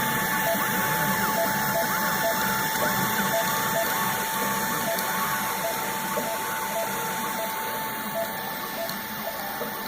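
3D printer running a print: the stepper motors give a steady whine with many short rising and falling pitch glides as the head moves, over a constant hum.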